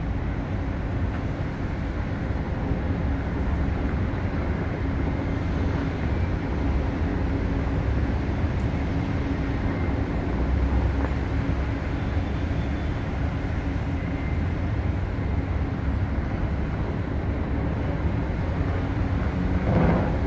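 Steady low rumble of city traffic heard from high above the street, with a brief louder swell just before the end.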